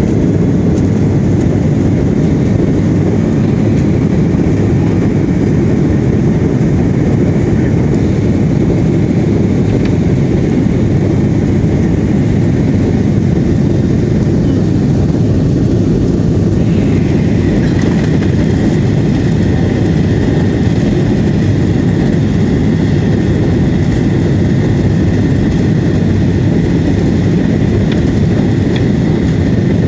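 Steady cabin noise of a Boeing 737-800 airliner in flight: the low rush of its engines and the airflow around the fuselage, with a faint high whine that comes in a little over halfway through.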